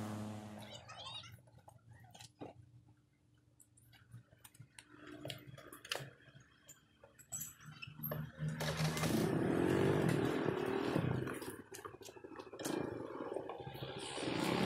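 Quiet with a few scattered clicks and knocks, then a small motor scooter engine starts about eight seconds in and runs, revving up again near the end as it pulls away.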